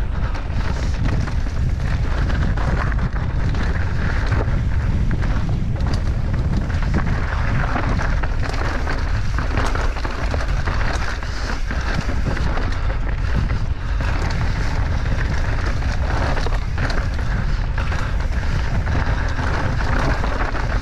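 Mountain bike riding down a rocky, gravelly singletrack: wind buffeting the microphone, with the tyres crunching over loose stones and frequent knocks and rattles from the bike.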